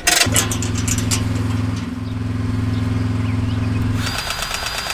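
Tractor diesel engine idling steadily. About four seconds in it gives way to a different, higher-pitched mechanical whir with a fast, even clatter.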